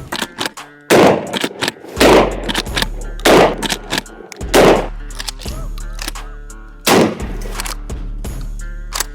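Ege Arms LV12S 12-gauge lever-action shotgun fired five times, one to two seconds apart, each a sharp loud blast with a short echoing tail, over background music.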